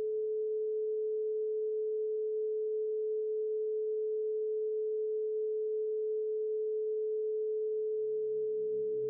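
A steady pure tone at about 432 Hz, held unchanged. Much fainter low tones underneath drop away about two seconds in and come back near the end.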